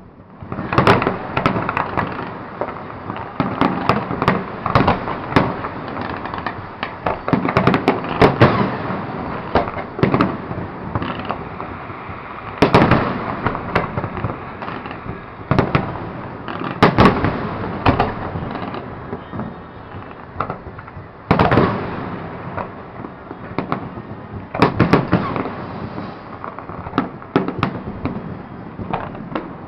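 Fireworks going off in dense volleys: many sharp bangs close together over continuous crackling, with the heaviest barrages about 1, 8, 13, 17 and 21 seconds in.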